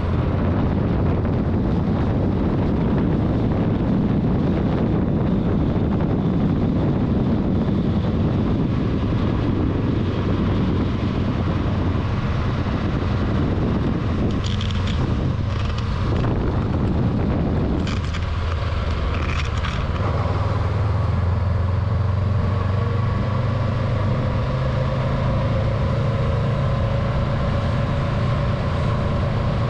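Honda CB500X parallel-twin motorcycle engine running while riding, under heavy wind noise on the microphone. The engine pitch climbs gradually in the last third.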